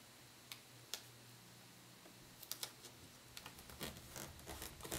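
Faint clicks and soft paper rustling of a paper sticker being peeled and pressed down onto a planner page by hand: two single light ticks in the first second, a cluster of ticks near the middle, and soft rustling toward the end.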